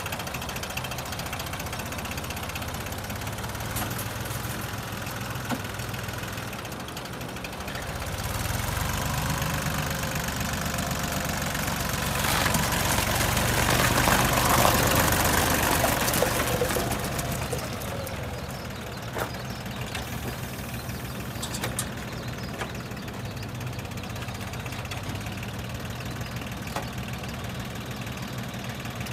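Yanmar YM2402S compact tractor's diesel engine running steadily as the tractor is driven. It grows louder in the middle, then settles back.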